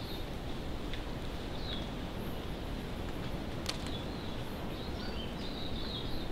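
Birds calling now and then in native bush over a steady background hiss, with one sharp click a little past halfway through.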